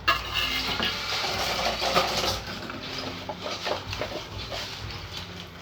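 Remote-control toy excavator running: small electric motors whirring in short spells, with light plastic clicks and clatter from its moving arm and tracks.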